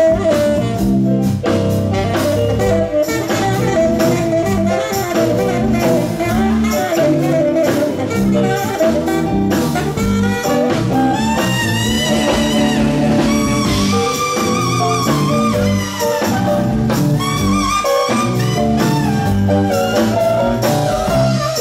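Live blues band with saxophones, keyboard, bass and drums playing an instrumental passage with no vocals. From about eleven seconds in a wavering high lead line rides over the band.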